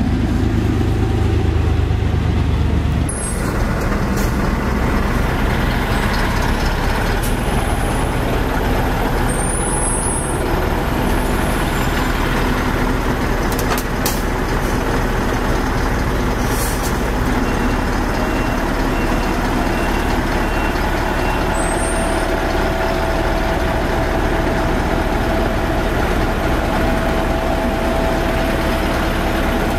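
Heavy diesel vehicle engines running close by, a loud steady rumble that changes abruptly about three seconds in. A few short high squeals come and go, and a faint run of evenly spaced beeps sounds in the middle.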